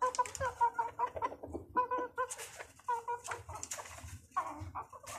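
Silkie-cross and bantam chickens clucking in a quick run of short calls that thin out toward the end, with a few brief scratchy noises.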